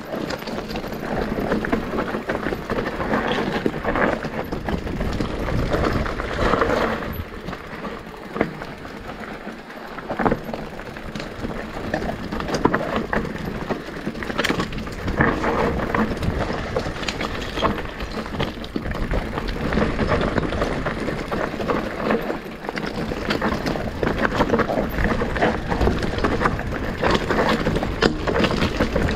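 E-mountain bike riding down a rough dirt trail: tyres rolling and crunching over the ground, with the chain and frame rattling and knocking over bumps.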